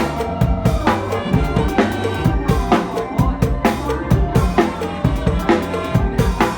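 Drum kit played with bass drum, snare and rimshots in a fast, steady mor lam rhythm, over backing music with a steady bass line.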